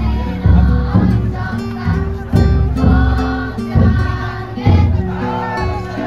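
Futon daiko festival float's drum beaten at a steady pace, about once a second, with the carriers and crowd chanting in unison over it.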